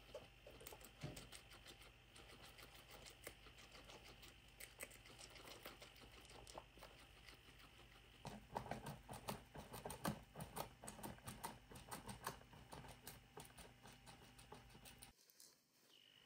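Two guinea pigs chewing coriander leaves: faint, rapid crisp clicks of nibbling, busier and louder from about eight seconds in, breaking off briefly near the end.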